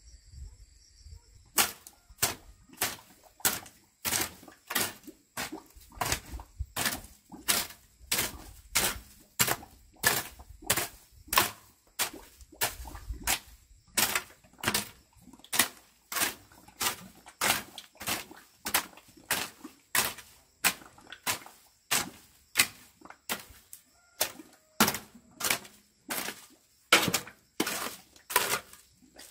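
A metal-bladed hoe chopping into dry soil in a steady rhythm, about three strikes every two seconds, starting about a second and a half in.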